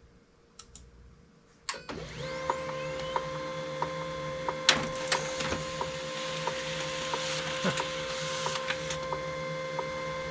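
HP LaserJet 1022 laser printer printing a test page: it starts with a click a little under two seconds in and a short rising whine, then runs with a steady mechanical whir and hum, with light ticks about twice a second.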